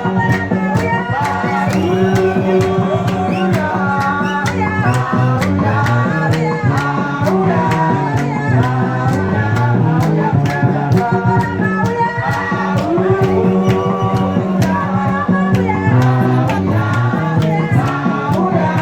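Church praise music: sung vocals over a stepping bass line and a steady drum beat.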